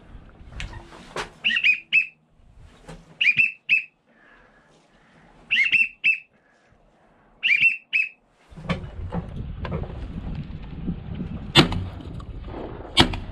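Duck whistles, a short group of two or three rising-and-falling whistled notes about every two seconds, like a wigeon's whistle. From about two-thirds of the way in, steady rustling and handling noise with a few sharp clicks takes over.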